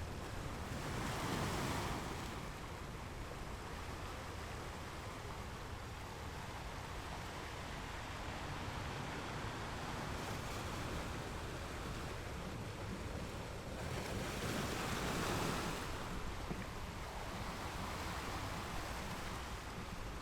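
Ocean waves crashing against rocks: a continuous wash of surf with louder surges about a second in and again near the three-quarter mark.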